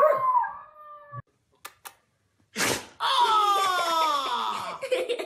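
A dog howls briefly at the start, its pitch falling. After a short quiet gap with a couple of clicks, a woman lets out a long howling wail that slides downward in pitch, from about three seconds in.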